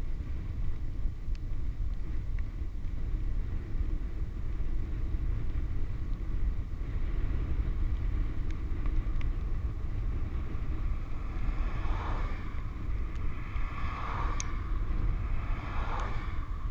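Steady low rumble of wind buffeting the action camera's microphone, mixed with bicycle tyres rolling on asphalt at descending speed. Near the end come three brief swells of higher-pitched noise, about two seconds apart.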